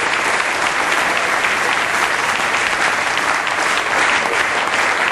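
A large audience applauding, dense and steady.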